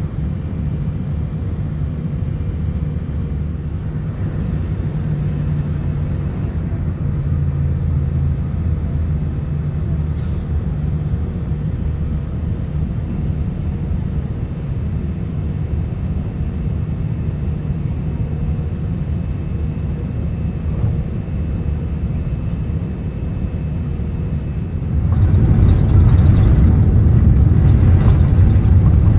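Cabin noise of a Boeing 787 heard from a window seat over the wing. A steady low rumble of the Rolls-Royce Trent 1000 engines at taxi power runs for most of the time. Near the end the sound turns suddenly louder and fuller as the engines spool up to take-off thrust and the take-off roll begins.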